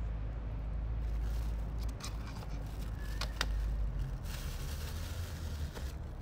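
Cats crunching dry kibble off pavement, a few sharp crunches and clicks about two to three and a half seconds in, over a steady low rumble.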